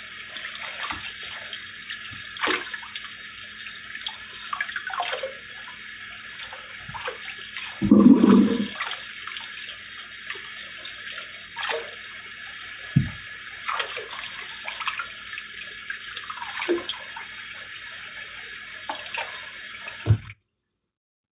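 Tap water running into a kitchen sink as fruit is rinsed and handled, with scattered knocks and clatters and one louder thud about eight seconds in. The sound stops abruptly near the end.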